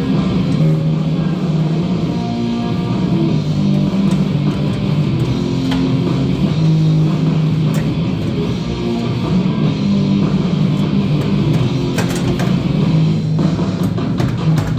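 Rock music with electric guitar and drums playing on a radio.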